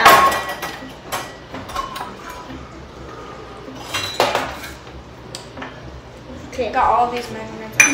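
Kitchenware clinking and knocking as measuring cups and utensils are handled to measure out flour: a sharp clink with a short ring at the start, lighter clinks in between, and a loud knock about four seconds in.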